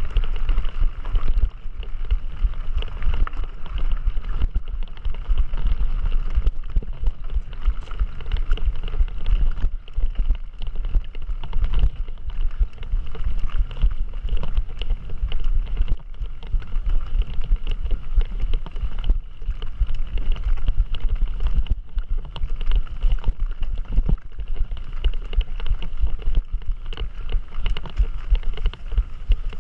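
Wind buffeting the microphone over the rumble and rattle of a mountain bike being ridden over rough ground, steady throughout with many small knocks.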